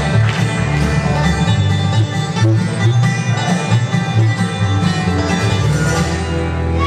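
Live bluegrass band playing: banjo, acoustic guitar, mandolin and upright bass together, with deep plucked bass notes under the picking.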